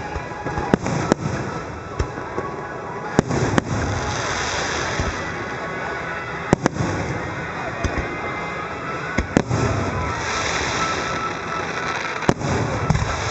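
Aerial firework shells bursting in the sky: sharp bangs at uneven intervals, about eight in all, with a dense crackling hiss about 4 seconds in and again about 10 seconds in.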